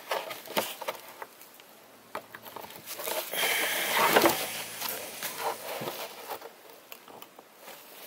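Makita 18V cordless drill running for a few seconds while it drills through the plastic release button of a bag buckle, the bit grinding into the plastic, loudest about four seconds in. Clicks and rustles of the buckle and bag fabric being handled come before and after.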